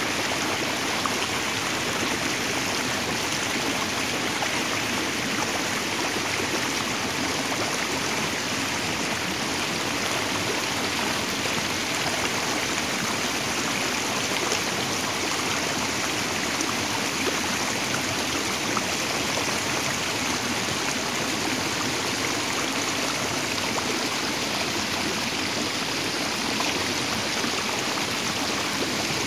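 Shallow stream pouring over a low rock ledge in a small rapid: a steady, even rush of water.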